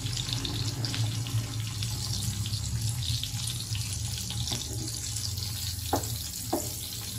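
Sliced ham and pork belly sizzling in a ridged grill pan: a steady hiss with fine crackling of spitting fat over a low rumble. There are two short scrapes of a wooden spatula about six seconds in.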